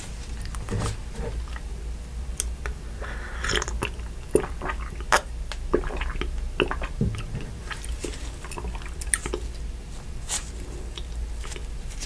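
Close-miked eating sounds: wet mouth clicks, smacks and chewing, scattered irregularly over a low steady hum.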